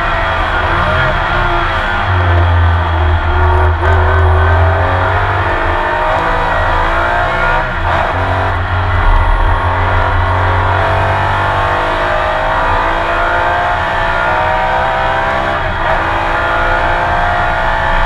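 Porsche 911 RSR race car's engine heard onboard at racing speed: the revs climb and drop back several times as it shifts through the gears.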